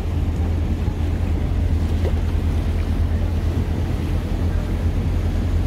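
Open motorboat running steadily at sea: a constant low engine hum under the rush of water and wind buffeting the microphone.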